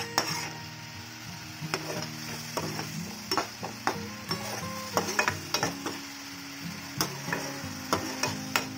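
Slotted spatula scraping and clacking irregularly against a nonstick kadhai as a thick tomato-onion masala is stirred fast, over a steady sizzle of the masala cooking down with a splash of water.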